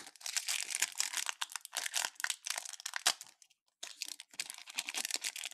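Foil wrapper of a baseball trading-card pack crinkling and tearing as it is worked open, with a short pause about three and a half seconds in; the pack is stubborn to open.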